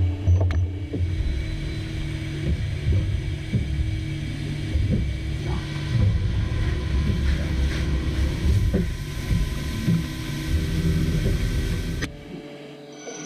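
Hitachi Seiki Super Hicell 250 CNC turning and milling centre running: a steady low rumble with faint whining tones and scattered small knocks. It cuts out abruptly near the end.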